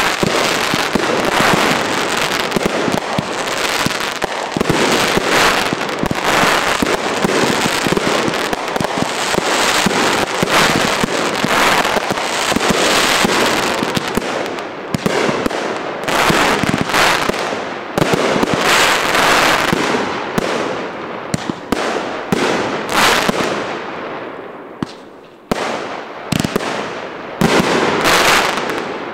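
Fireworks going off in a dense, continuous barrage of bangs and crackling. The barrage thins and fades over the last several seconds, with a few single loud bangs near the end.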